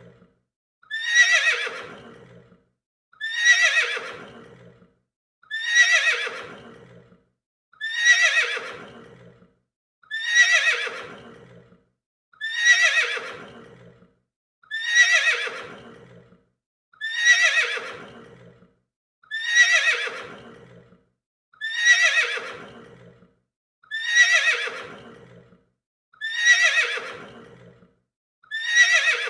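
A horse's whinny played over and over as a looped sound effect, the same call about every two and a quarter seconds. Each call starts high and falls in pitch, trailing off before the next one.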